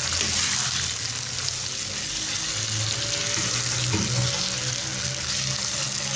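Marinated chicken pieces frying in hot oil in a nonstick pan, sizzling steadily as they are stirred with a silicone spatula.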